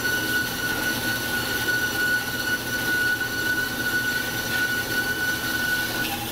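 1997 Marvel MV460 vertical band saw blade cutting through a rectangular steel tube: a steady high-pitched whine over the machine's running noise. The whine stops near the end.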